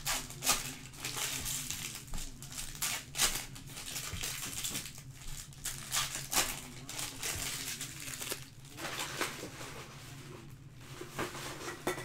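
Foil trading-card pack wrappers crinkling and crackling in the hands as the packs are handled and opened, in irregular sharp crackles that thin out about two-thirds of the way through.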